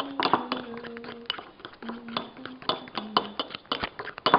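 A utensil clinking and tapping quickly against a mixing bowl as cake batter is stirred, over a melody of held notes that stops a little past three seconds in.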